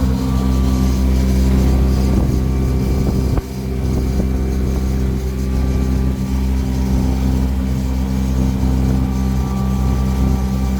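Lake cruise boat's engine running steadily with an even low hum, dipping briefly about three and a half seconds in.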